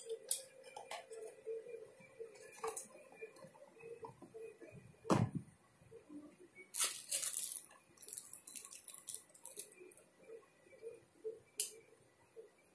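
Small metal and plastic parts of a Beyblade Metal spinning top clicking and clinking as they are handled and fitted together. A dull thump comes about five seconds in, and a brief rustle around seven seconds.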